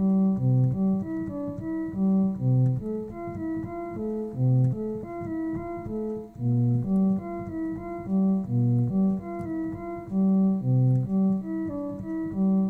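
Homemade additive synthesizer playing a cello-like patch from a keyboard: a flowing line of notes, a few per second, with the lowest notes held longest. Each note ramps in with a short attack rather than a pluck and hangs on briefly as it fades, with a little reverb.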